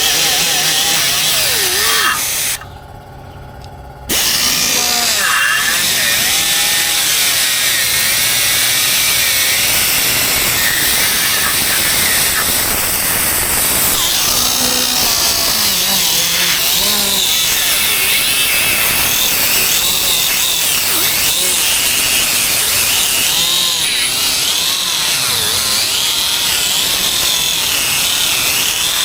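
Power sander running on the truck's bodywork, cutting out briefly about three seconds in.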